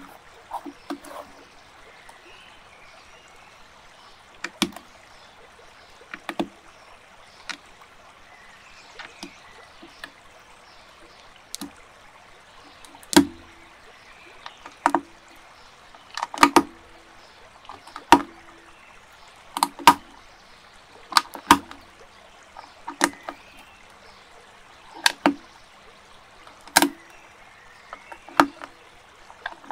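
Plastic building bricks clicking as they are pressed and snapped together: sharp single clicks, sparse at first, then about one every second or two over a faint steady hiss.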